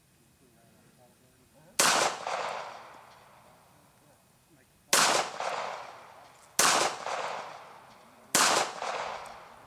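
East German Makarov PM pistol firing four 9x18mm Makarov rounds in slow aimed fire, each shot followed by an echo that dies away over about a second. The gap after the first shot is about three seconds, the next shots come a little under two seconds apart; the first is fired double action, the rest single action.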